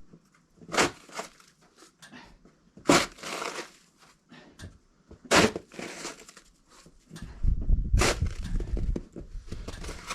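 Slow, crunching footsteps: four loud crunches a couple of seconds apart, with fainter ones between. Wind noise rises again near the end.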